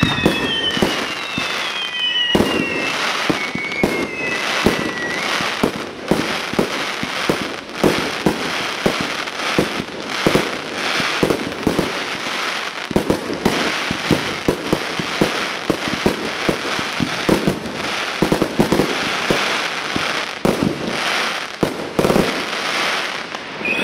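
Aerial firework shells bursting in quick succession: many sharp bangs over a dense crackle. Several falling whistles sound over the first few seconds.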